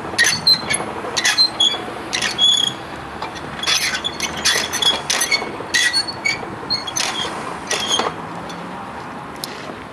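Hand crank of a manual level-crossing barrier winch being turned, giving a run of sharp, ringing clanks and squeaks about twice a second that stop about eight seconds in.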